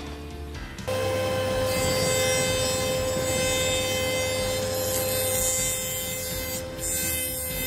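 A table saw ripping a long board for the first second. Then a Taiyo jointer runs with a steady whine while a board is pushed over its cutterhead, the knives planing the wood.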